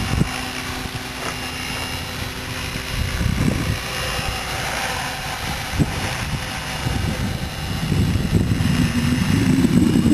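Electric 550-size RC helicopter in flight: a steady whine from the motor and rotor. An uneven low rumble grows louder in the last couple of seconds.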